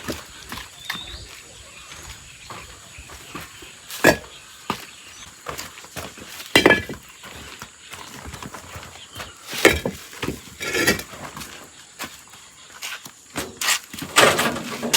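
Hollow bricks being unloaded and set down one at a time: sharp knocks and scrapes of brick on brick, a few seconds apart.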